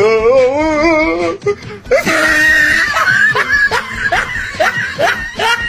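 A person laughing and shrieking: a wavering cry, then a high shriek about two seconds in, then a run of short rising yelps about two a second.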